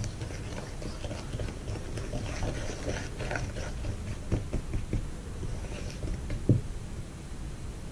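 A wooden stick stirring thick glitter paste made of wallpaper glue and glitter in a small jar: soft scraping and small clicks against the jar, with one sharper knock about six and a half seconds in.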